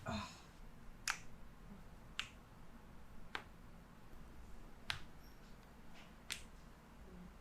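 Five faint, sharp clicks at a fairly even pace, about one every second and a quarter.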